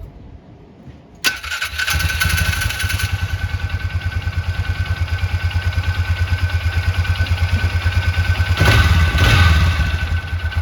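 Polaris Ranger 500's fuel-injected single-cylinder engine cranking and catching about a second in, then running at an even, quick pulse, swelling louder twice near the end. It starts and runs smoothly without hesitation on its newly fitted fuel pump.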